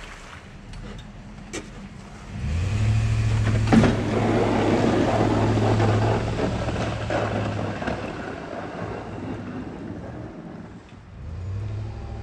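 Plow-equipped Ram 1500 pickup driving away across a slushy lot: a steady engine note comes up about two and a half seconds in over tyre noise on wet pavement, eases off, and picks up again near the end. A single sharp knock about four seconds in.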